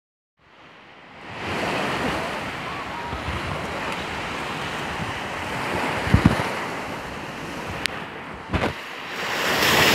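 Small waves breaking and washing up on a sandy shore, with wind on the microphone. A few brief low thumps about six and eight and a half seconds in, and a sharp click just before the second.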